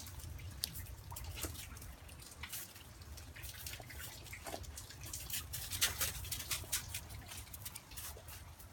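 Dalmatian puppy gnawing a stick on hail-covered ground: irregular crunching, cracking clicks of wood and hail ice, over a steady low rumble.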